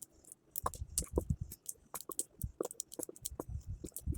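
Irregular small clicks and taps of a clear-glue bottle being handled and squeezed over a bowl as the glue goes in.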